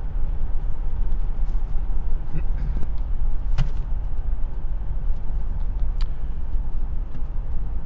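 Steady low rumble of a vehicle driving along a road, engine and tyre noise, with two brief clicks about three and a half and six seconds in.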